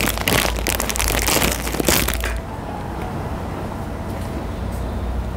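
Crinkly plastic wrapper of an instant ramen noodle packet being squeezed and torn open, a dense crackling that lasts about two seconds before settling down.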